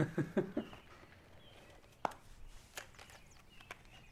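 Aluminium drink cans being handled and fitted into the holders of a drinking helmet: a few soft knocks at the start, one sharp click about two seconds in, then faint taps.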